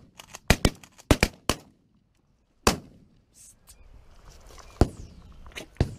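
Several shotguns firing in a volley: a rapid string of loud shots in the first second and a half, then single shots near three seconds, near five, and just before the end.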